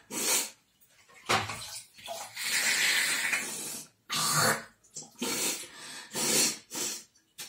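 Nasal rinsing with warm salt water from a cupped palm over a sink: repeated short, sharp sniffs and snorts as the water is drawn up a nostril and blown and spat back out, with water splashing. One longer noisy stretch of about two seconds comes around the middle.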